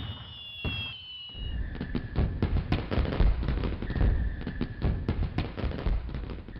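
Fireworks display going off in a dense, rapid run of bangs and crackles, starting about a second and a half in as the last notes of music fade.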